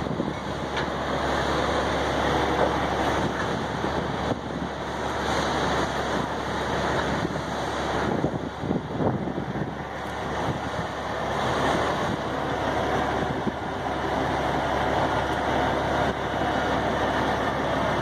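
Steady rushing outdoor vehicle noise, with trucks and road traffic running nearby, mixed with wind on the microphone.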